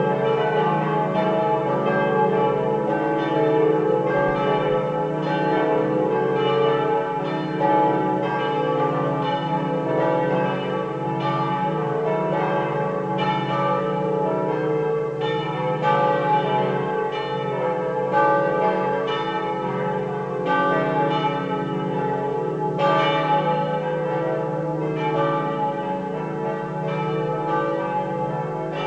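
Several swinging bronze church bells from a five-bell set tuned D, E, F#, G, A ringing together, their strikes coming several times a second and overlapping into a continuous peal.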